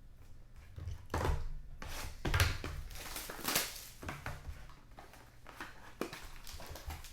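Trading card packaging being handled and opened: irregular rustling and crinkling in bursts, loudest in the first few seconds, then lighter handling sounds.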